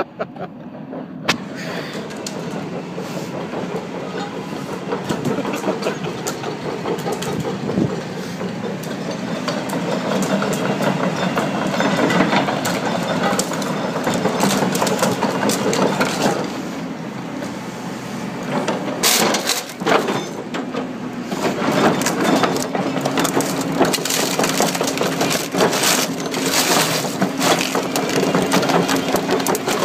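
An Epson R200 inkjet printer being crushed under a digger, its plastic cracking and splintering continuously over the digger's running diesel engine.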